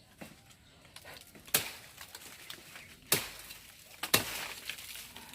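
Three sharp knocks, irregularly spaced about a second and a half and then a second apart, with fainter clicks and taps between them.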